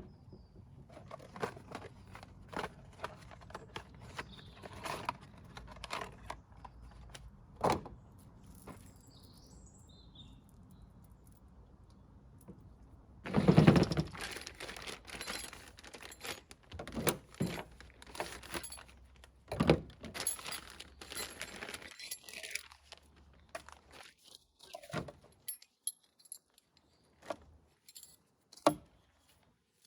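Things being handled and unpacked: scattered clicks, taps and knocks, with a louder burst of rustling and clatter about halfway through.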